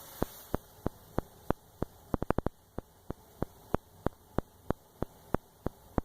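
A steady series of sharp clicks, about three a second, with a quicker run of several clicks about two seconds in.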